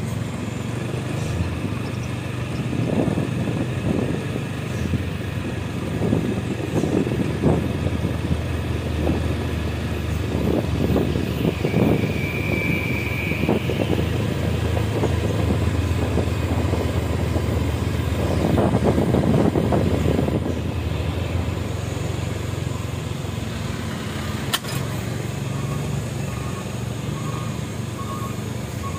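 Steady low rumble of motor vehicle engines, with irregular rushing bursts over it. A brief high steady tone sounds about twelve seconds in.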